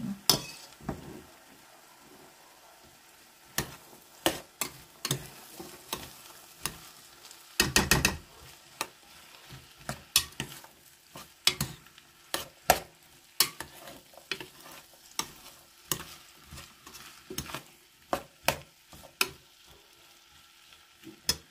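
A spoon stirring broad beans through fried tomato and pepper paste in a pot, knocking and scraping against the pot in irregular clicks, with a denser flurry about eight seconds in. A faint sizzle of the hot paste runs underneath.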